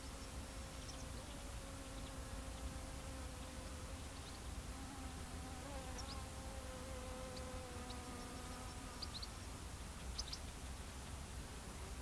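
A flying insect buzzing steadily, its pitch slowly sinking and wavering about halfway through. Faint short bird chirps come here and there, over a low wind rumble.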